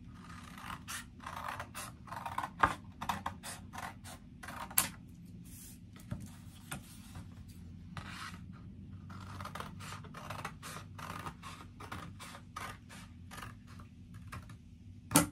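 Scissors cutting through thick black paper: a long run of repeated snips with the paper rustling. A sharp click near the end.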